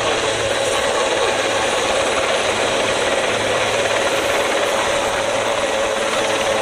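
Denel Rooivalk attack helicopter hovering low: a loud, steady, fast rotor beat with a steady whine over it.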